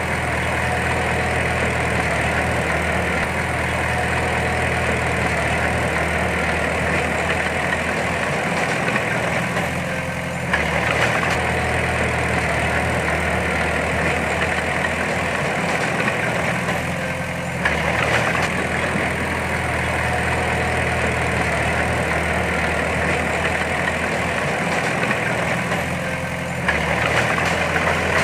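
Diesel engine of heavy earthmoving machinery running steadily. Its note shifts three times, several seconds apart, as the load or throttle changes.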